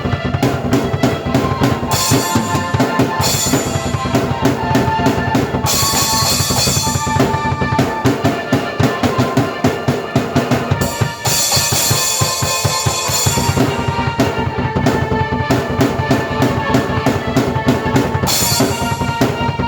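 A drum kit and keyboard playing together: a driving kick-and-snare rhythm under sustained keyboard chords, with cymbal crashes every few seconds and a short break about eleven seconds in.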